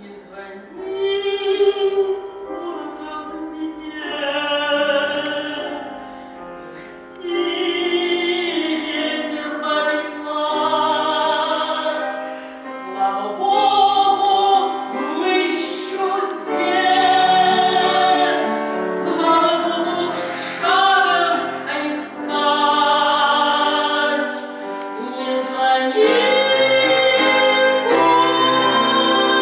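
A woman singing a Russian spiritual folk song with instrumental accompaniment, her voice carrying long held notes.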